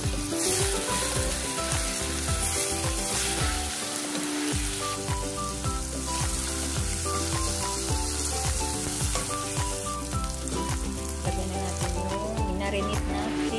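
Chopped onions and tomatoes sizzling as they fry in oil in a stainless steel pot, stirred with a wooden spoon, over background music with a steady beat.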